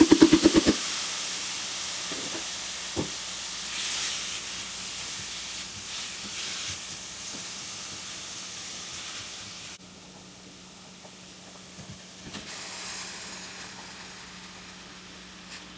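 Steady sizzling hiss of food cooking on a hot stove, opening with a quick run of clicks. The hiss cuts off suddenly about ten seconds in and comes back more faintly a couple of seconds later.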